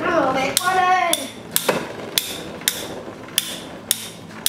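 Two metal-ringed Infinity Nado 3 battle tops spinning in a plastic stadium and repeatedly striking each other: sharp metallic clinks with a short ring, about two a second.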